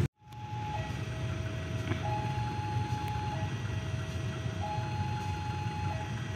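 Electronic two-tone warning alarm alternating steadily between a higher and a lower tone, each held for about a second and a quarter, over a steady low rumble.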